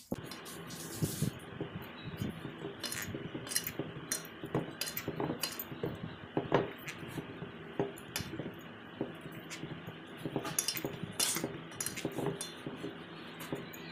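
Hands kneading a stiff, tight flour dough in a steel plate: irregular knocks, thumps and scrapes as the dough is pressed and pushed against the metal, and the plate clinks. A steady hum runs underneath.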